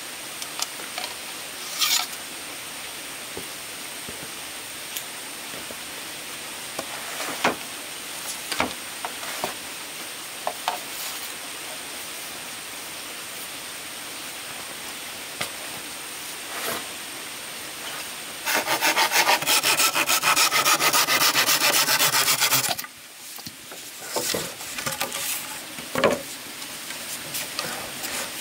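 Bamboo being sawn by hand: a loud run of rapid saw strokes lasting about four seconds, partway through. Before and after it come scattered light knocks and scraping of wood.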